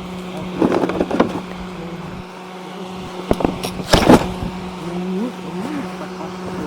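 Homemade snowmobile's small engine idling steadily, with a few sharp knocks and clunks as the machine is lifted and handled.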